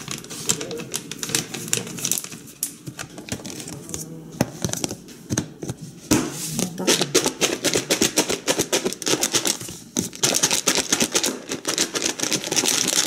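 Lidded plastic tub of coleslaw being shaken to mix in raisins: a fast, steady rattle of the shredded cabbage and raisins thrown about inside, starting about six seconds in, with a short break near ten seconds. Before that, rustling as the raisin bag is emptied and the lid is pressed on.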